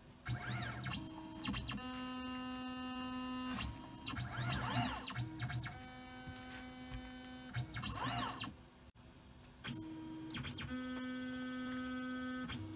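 Tormach PCNC 770 CNC mill's axis stepper motors whining as the machine moves a touch probe around the stock to set work zeros. The pitch sweeps up and down as each move speeds up and slows down, with steady whining tones during the slower probing moves in between. There is a brief pause about nine seconds in.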